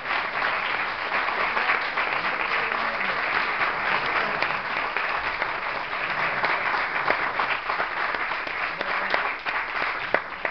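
Audience applauding: dense, steady clapping that thins out into scattered claps near the end.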